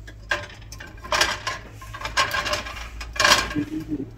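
Stainless steel pot shifted about on an electric coil burner, its base scraping and clinking against the coil in four or so short, irregular bursts.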